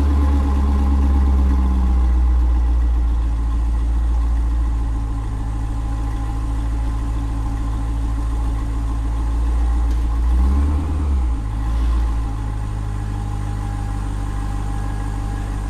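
2000 C5 Corvette's LS1 V8 idling steadily through its original factory stock exhaust, a low, quiet, even note. About ten seconds in, the note shifts briefly before settling again.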